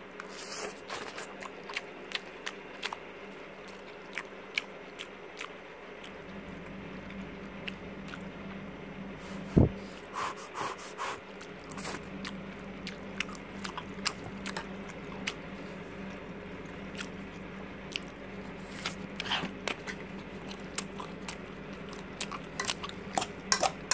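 Someone eating instant noodles close to the microphone: chewing and biting with scattered sharp clicks, and one louder knock about ten seconds in. A low steady hum comes in about six seconds in.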